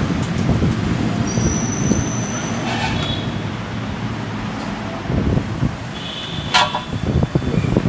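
Steady street traffic noise, with a brief thin high-pitched tone a little over a second in and a sharp click about two-thirds of the way through.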